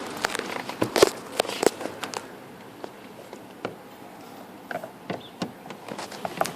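Irregular clicks and knocks of a screwdriver and car door parts being handled, the loudest about a second in, then sparser light ticks.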